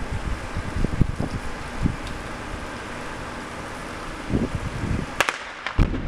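Small rock blast under blast mats: a sharp crack about five seconds in, then a duller bang about half a second later. Wind on the microphone gusts and thumps throughout.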